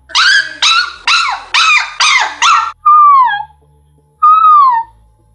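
A woman's high falsetto whining like a puppy, a warm-up for the whistle register: six short whimpers in quick succession, then two longer high notes that each slide down at the end.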